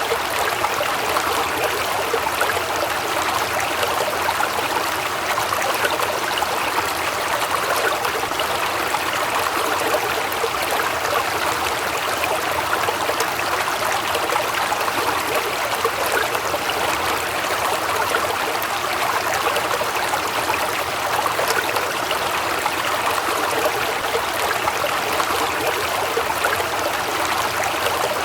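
Waterfall water rushing and splashing in a steady, unbroken hiss.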